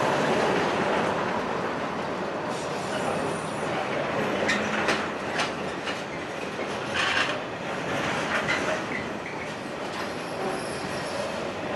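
Container wagons of a freight train rolling past, a steady rumble of steel wheels on rail. Several brief sharp clicks and squeaks from the wheels come between about four and eight seconds in.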